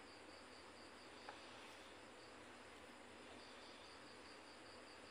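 Near silence with a faint cricket chirping steadily at about four pulses a second, over a low hiss. A faint tick sounds about a second in.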